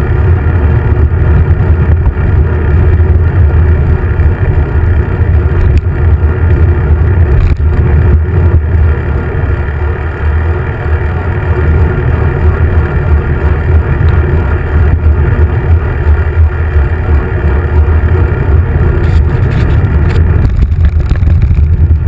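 Wind rumbling and buffeting on a handlebar-mounted camera's microphone while riding a road bike: a loud, continuous low rumble that rises and falls.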